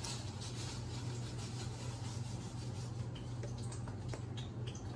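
Steady low hum and hiss at the stove, with a few light clicks and taps of cookware being handled.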